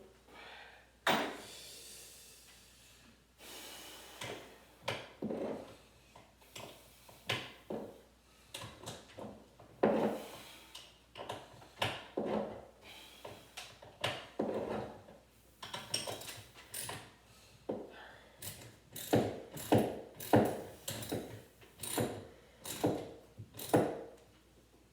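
Hand socket ratchet being worked on a bolt, clicking in short repeated bursts with each back-stroke. The strokes come faster and louder in the last few seconds.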